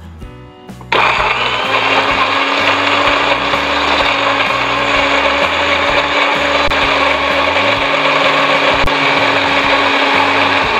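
Countertop electric blender switched on about a second in, running steadily at one pitch as it purées shallots, chillies, garlic, candlenuts and a little water into a smooth wet spice paste.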